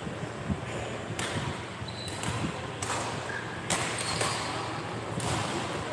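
Badminton play echoing in a large sports hall: a series of sharp, irregular racket hits and footfalls on the court, with a few brief shoe squeaks.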